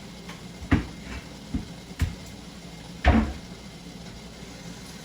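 A few short knocks and clunks of kitchen things being handled, four in all, the heaviest about three seconds in, over a steady low background hiss.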